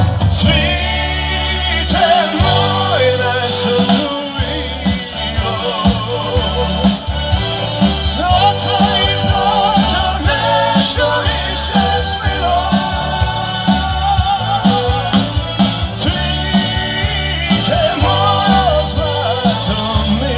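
Live band playing a pop song through a stage PA, heard from among the audience: a steady drum beat, bass and electric guitars, with a wavering melody line over them.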